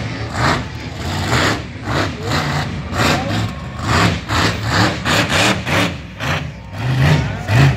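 Monster truck engine revving in short, repeated bursts of throttle, its pitch surging and dropping a few times a second.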